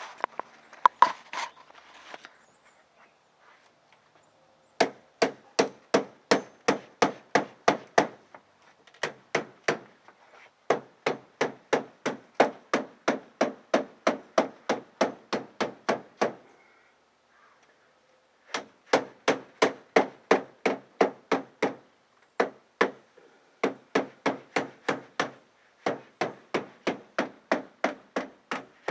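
Hammer striking a screen hold-down strip to drive it back into its channel on a beam: steady blows about three a second, in several runs broken by short pauses.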